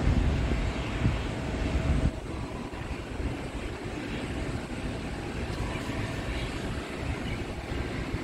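Aircraft engine noise: a steady rush with a heavy low rumble that eases about two seconds in, with a faint steady whine above it.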